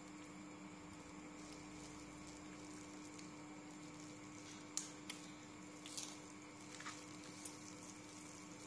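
Faint eating sounds from a seafood boil: a few short clicks and smacks in the second half as a clam is sucked from its shell and shells are handled with plastic-gloved hands, over a steady faint hum.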